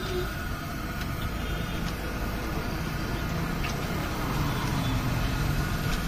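Batter-coated pav sizzling as it deep-fries in a large kadai of hot oil, a steady hiss over a low rumble, with a few faint clicks.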